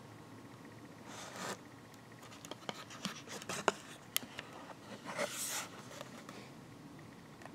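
Handling noise from a book-style card coin folder being turned over in the hands. Card slides and rubs against fingers in two short swishes, about a second in and again about five seconds in, with a run of small clicks and taps between them.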